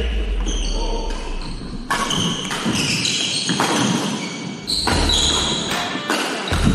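Doubles badminton rally: several sharp racket strikes on the shuttlecock, with footsteps and short high squeaks of shoes on the wooden court floor.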